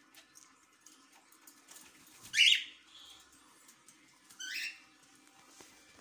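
A pet parrot gives two loud, short, harsh calls, about two seconds apart, the first the louder, with faint chirps and ticks between them.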